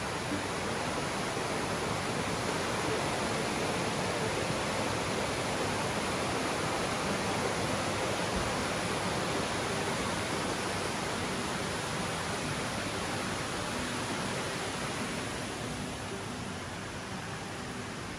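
Rocky mountain stream rushing over stones: a steady, even rush of water that fades somewhat near the end.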